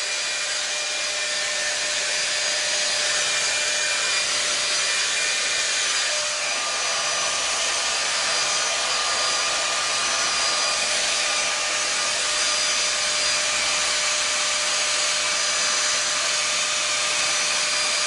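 Handheld 5-in-1 hot air styler, a Dyson Airwrap lookalike, blowing steadily: a constant rush of air with a thin, steady motor whine.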